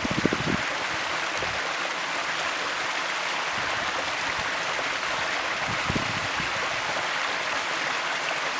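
Mountain stream rushing steadily over rocks, with a few low thumps right at the start and again about six seconds in.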